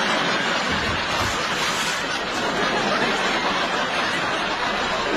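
Sitcom studio audience laughing loudly and steadily, with a couple of low thumps about a second in.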